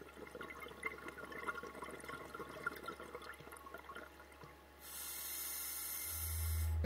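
Scuba diver's regulator underwater: exhaled bubbles gurgle and crackle for about four and a half seconds, then the steady hiss of an inhale. A low music drone fades in near the end.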